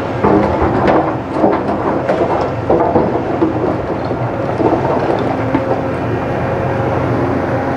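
Sumitomo 300C tracked excavator's diesel engine running steadily under load, with the bucket scraping and knocking through rock and rubble: a run of clanks in the first three seconds or so, then mostly the engine.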